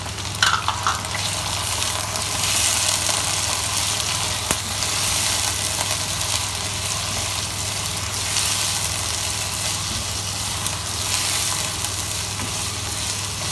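Chicken pieces, browned onions and ginger-garlic paste frying in hot oil in a non-stick wok, a steady sizzle that swells a few times as a spatula stirs and turns the food. A few light knocks near the start.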